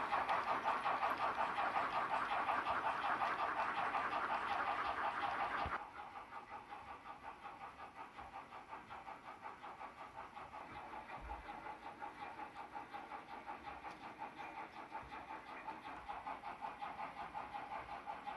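H0-scale model locomotive engine sound, a regular pulsing beat of a few pulses a second. It drops suddenly to a quieter level about six seconds in.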